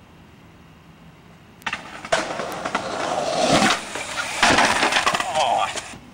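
Skateboard wheels rolling on concrete, growing louder, then a hard clack about halfway through as the board lands on a metal stair handrail, followed by the board grinding along the rail for about a second and a half. The grind stops abruptly just before the end.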